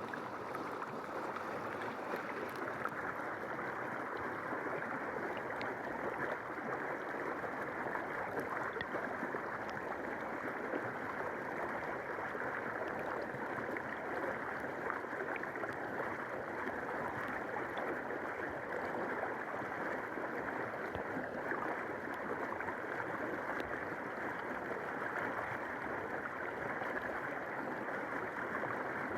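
River water flowing in a steady, muffled rush, as heard with the microphone underwater, with a few faint ticks.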